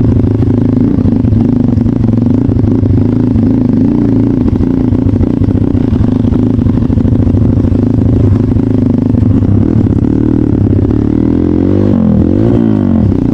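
Trail motorcycle engine running at low, steady revs, with a brief drop and rise in revs near the end.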